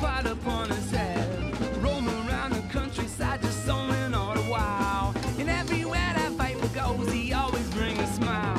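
Americana band playing an instrumental break: upright bass and drums keeping a steady beat under a lead line that slides and bends in pitch, over fiddle and guitar.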